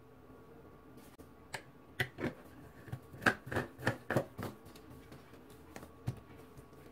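Sharp plastic clicks and knocks as the black blade base of a personal blender is set on the jar and screwed tight, most of them two to four and a half seconds in.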